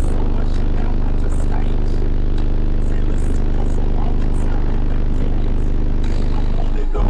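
Car-audio subwoofer playing loud, deep bass: a steady low drone with a fast flutter, which gives way to a different bass-heavy passage about seven seconds in.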